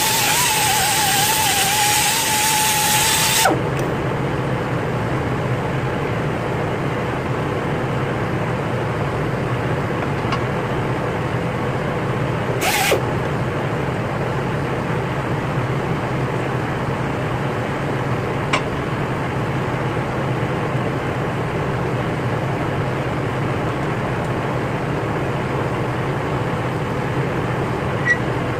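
Pneumatic grinder with a cleaning disc running on the cast face of a Mazda RX-8 rotary engine side housing, a whirring scrub whose pitch wavers under load, cutting off suddenly about three and a half seconds in. After that a steady low hum carries on, with one sharp clank near the middle and a few light ticks.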